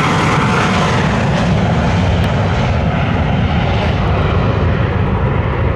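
Cessna 680 Citation Sovereign's twin Pratt & Whitney Canada PW306C turbofans at takeoff power, a loud low rumble as the business jet departs, with the higher hiss above it dying away.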